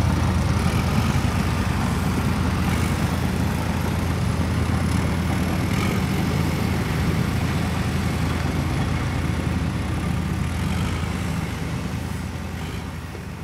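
Steady engine running sound, a low rumble with no change in pitch, fading out near the end.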